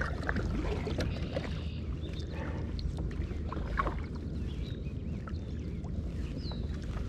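Kayak paddle strokes through a weedy pond: water swishing and dripping off the paddle blades, with scattered small clicks, over a steady low rumble.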